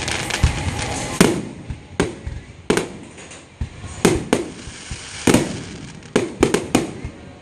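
Aerial firework shells bursting overhead, a series of about a dozen sharp bangs at irregular intervals, with several coming in quick succession near the end.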